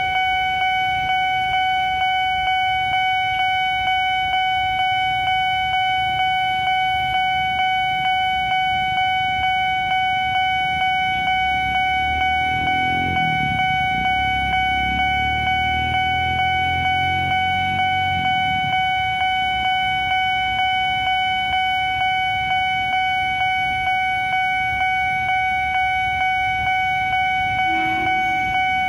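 Nippon Signal electronic level-crossing warning siren sounding a steady pulsing tone, about two pulses a second: the warning that the barriers are down and a train is approaching. A vehicle engine rumbles underneath for several seconds midway.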